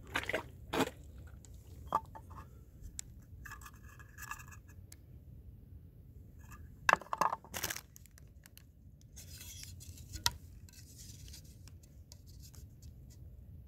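Scattered handling sounds: knocks, taps and rustling or scraping as an ammo box and a wooden ruler are brought up to a shot block of ballistic gel, with the loudest cluster of knocks about seven seconds in and a single sharp tap near ten seconds.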